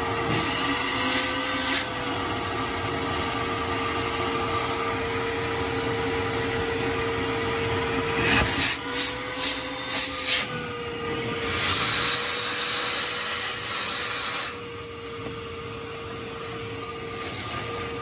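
Shop vacuum running, its hose sucking grit from around the spark plugs. The motor's whine rises briefly twice as the nozzle is pressed in, with a run of short hissing bursts about halfway through and a longer hiss a few seconds later.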